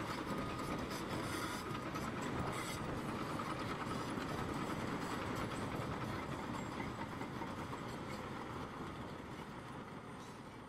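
A steady mechanical clattering and rattling noise, like a machine or rail sound effect, that gradually grows quieter through the second half.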